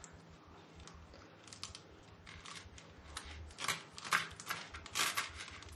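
Kitchen knife chopping spinach leaves on a wooden cutting board: a run of short, irregular knife strokes, faint at first and louder from about three and a half seconds in.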